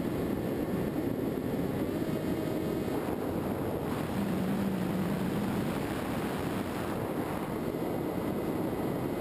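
Electric motor and propeller of a Skywalker FPV model plane heard from its onboard camera in flight, under a steady rush of wind over the airframe. The motor's pitch drops for about a second, roughly four seconds in.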